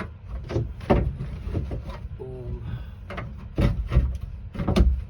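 A handful of dull knocks and bumps, about five of them, as things are handled and set against a surface. A brief vocal sound comes about two seconds in.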